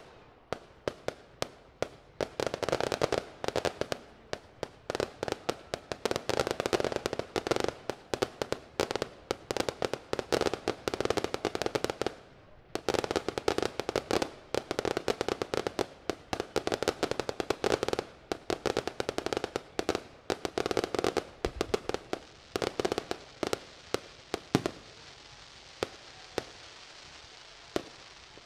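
Aerial fireworks crackling: rapid clusters of sharp pops in waves, with a short lull about halfway through. The pops thin out to a few scattered ones near the end.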